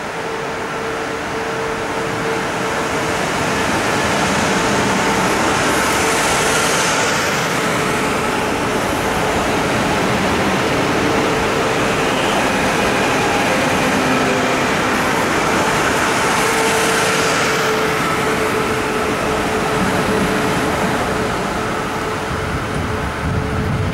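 SJ X40 double-deck electric multiple unit pulling slowly out of the station and passing close by. Its running makes a steady rumble and hiss with a held electric whine, swelling as the cars go past.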